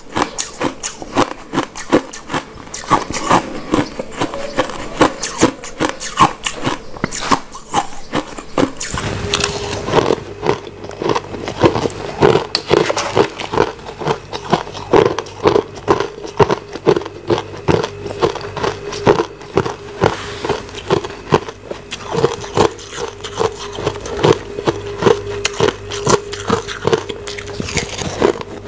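Crushed ice being bitten and chewed close to the microphone: a dense, continuous run of sharp crunches. About nine seconds in, a steady low hum joins underneath.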